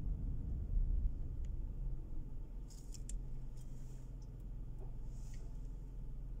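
Car's road rumble heard inside the cabin, dying away as the car slows to a stop, then a steady low engine idle hum. A few faint clicks.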